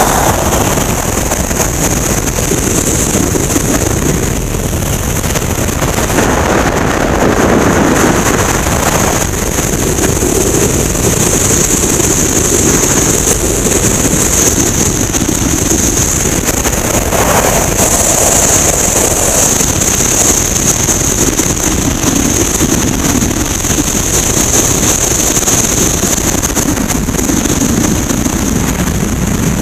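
Freefall wind rushing over the skydiving camera's microphone: a loud, steady roar with a constant high hiss on top, swelling a few times as the airflow shifts.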